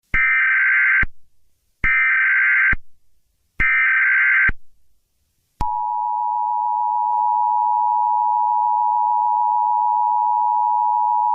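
Emergency Alert System tones: three short buzzy bursts of SAME header data, each about a second long. About a second after the last burst, the steady two-tone attention signal sounds for about six seconds.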